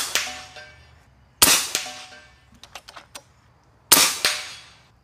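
FX Impact M3 big-bore .357 PCP air rifle firing solid slugs: two sharp reports about two and a half seconds apart, each trailing off over about a second. A few light clicks come between the shots, and the tail of an earlier shot fades at the start.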